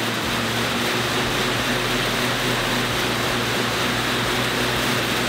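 Assault AirBike fan bike's fan whooshing steadily as it is pedalled and pushed hard.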